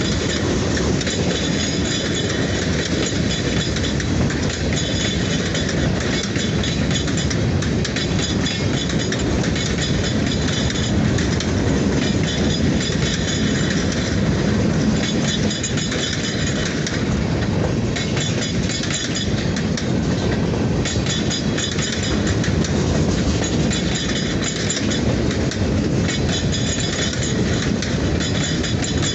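Boise Valley Railroad train rolling on the rails with a steady rumble, wheel and rail noise that comes and goes every few seconds.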